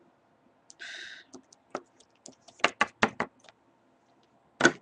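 Small plastic toy figurines tapped against a hard surface: a brief hiss about a second in, a quick run of sharp knocks in the middle, and one louder knock near the end.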